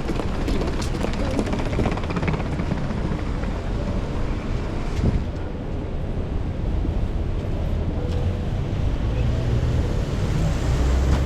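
City street in rain and strong wind: traffic noise mixed with wind buffeting the microphone. A deep rumble swells near the end.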